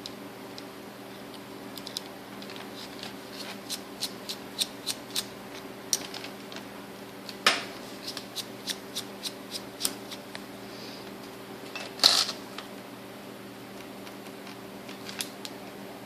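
Small irregular clicks and taps of a screwdriver and small metal parts on a Shimano Chronarch 101A baitcasting reel as its screws are worked out, with two sharper knocks partway through. A steady faint hum runs underneath.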